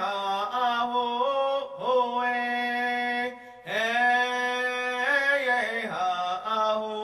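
A single voice singing long, held notes that slide from one pitch to the next, a slow chant-like song with no clear words. There is a brief pause between phrases about halfway through.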